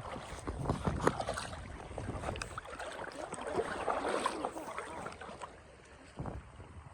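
Water splashing and sloshing with scattered small knocks, fading out about five and a half seconds in.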